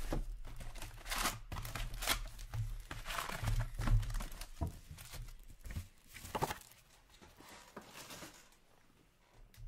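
Foil-wrapped hockey card packs crinkling and rustling as they are handled, pulled out of their cardboard box and stacked, with small knocks of cardboard among them. The handling is busiest in the first few seconds and dies down to faint rustles after about seven seconds, over a low hum that fades out partway through.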